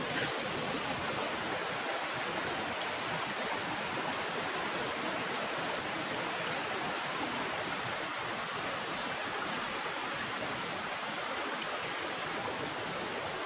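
Steady rushing of running water, like a nearby stream, with a few faint clicks over it.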